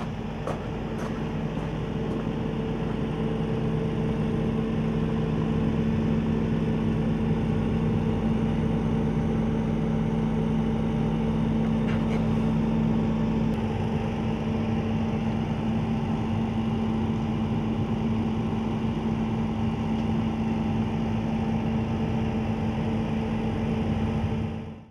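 Volvo tracked excavator's diesel engine running at a steady speed, a constant droning hum. There are a couple of faint knocks in the first second.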